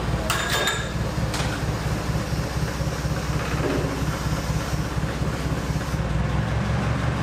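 An engine running steadily at a low, even pitch, with a few sharp clicks or knocks in the first second and a half.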